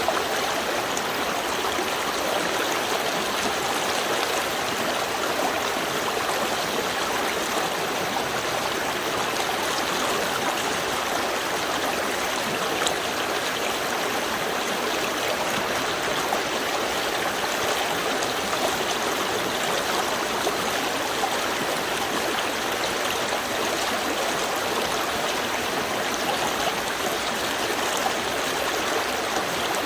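Small river stream flowing steadily, an even rush of running water with light gurgling over stones.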